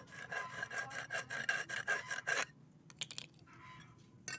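Rapid rhythmic rasping scrape, about seven strokes a second, lasting about two and a half seconds and then stopping. A few light clicks follow, with a sharp tick near the end.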